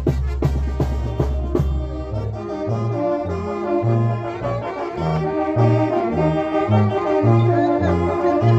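A live village brass band plays dance music. For the first two seconds or so drum beats sound over a held low note. Then the sousaphone comes in with a bass line that steps from note to note under sustained brass chords.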